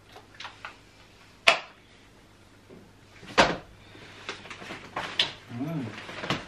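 Mamas & Papas Ocarro pushchair frame being folded: a few light clicks, then two loud sharp clacks about two seconds apart as the frame's joints and catches snap over, followed by a run of smaller rattling clicks as it settles folded.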